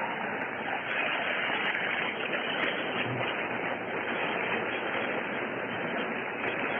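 Steady hiss-like background noise of an old sermon recording, with a few faint ticks.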